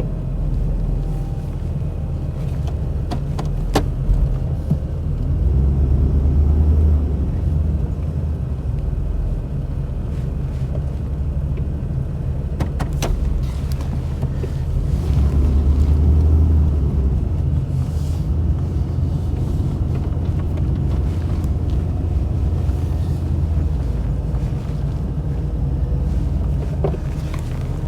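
Truck driving slowly: a steady low engine and tyre rumble that swells twice, with a few sharp knocks.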